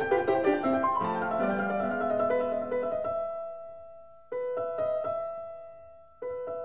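Background piano music: a quick run of notes, then a held chord that fades away and is abruptly struck again twice.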